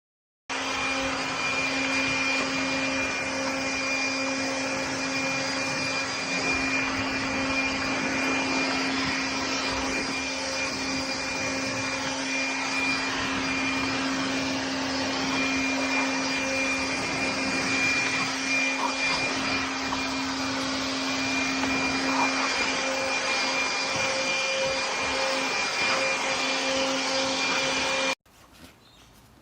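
An electric appliance motor running steadily, a loud even rush with a constant hum and a high whine, cutting off suddenly near the end.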